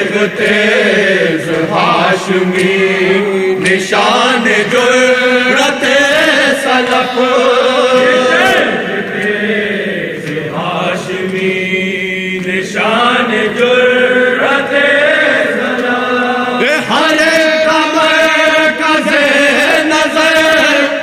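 Men chanting a noha, a Shia lament, together: a lead voice sings at the microphone and a group of men sings along.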